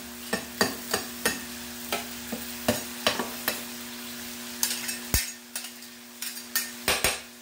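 A spatula scraping and tapping on a hot griddle while stirring and turning food, about two or three sharp clicks a second, with one heavier knock about five seconds in, over steady frying sizzle.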